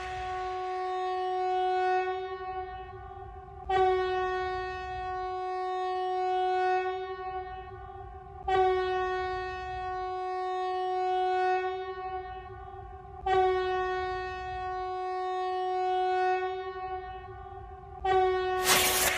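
Fake emergency alert attention tone: a single steady, horn-like note rich in overtones, restarting with a sharp attack about every five seconds and held almost until the next.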